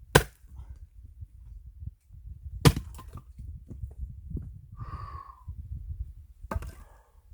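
Axe blows into firewood logs being split: three sharp, loud strikes, the loudest in the middle, with wood splintering after them.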